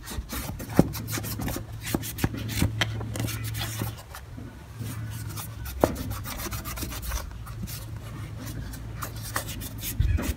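Cloth rag rubbing over the plastic air-filter housing cover of a scooter in quick repeated wiping strokes, with a few sharper clicks.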